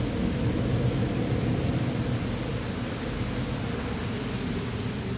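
Steady rain-and-storm noise, a dense low rumble with a hiss of rain above it, from a storm sound-effect track.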